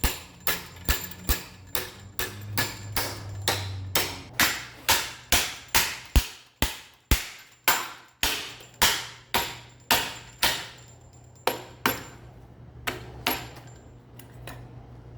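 Hand hammer striking steel on an anvil, about two ringing blows a second, slowing to a few spaced blows and lighter taps near the end, over a steady low hum.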